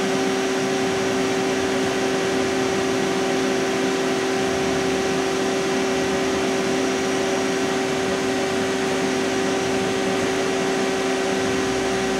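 2006 DMG Gildemeister NEF600 CNC lathe running while its tailstock quill is worked: a steady hum of several held tones over an even whir, nice and smooth, nice and quiet.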